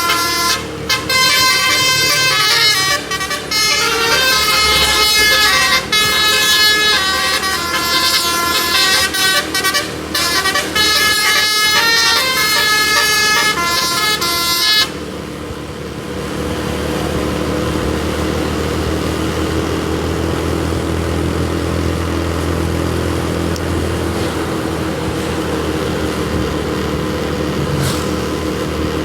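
Tour bus telolet (basuri) musical air horn playing a fast melody of high stepped notes with short breaks, cutting off abruptly about halfway through. After it, a steady low drone of engine and road noise.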